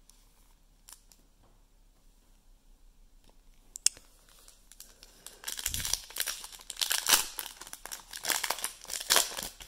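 Foil wrapper of a 2021 Panini Mosaic NFL card pack being crinkled and torn open: a dense, loud crackling rustle that starts about five seconds in. Before it, a quiet stretch with one sharp click near four seconds.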